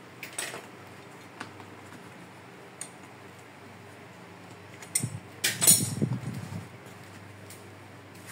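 Handling sounds of canvas being pulled over a wooden stretcher frame: a few light clicks and knocks, then a louder scuffing, knocking burst about five seconds in.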